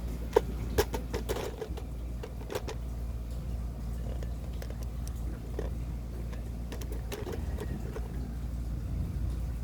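Scattered light clicks and taps of motorcycle drum-brake and rear-hub parts being handled and fitted, over a steady low hum.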